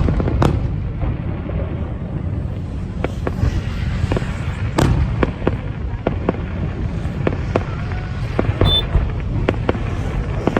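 Fireworks display: aerial shells bursting in an irregular series of sharp bangs, with a loud one right at the start and another about five seconds in. A steady low rumble runs underneath.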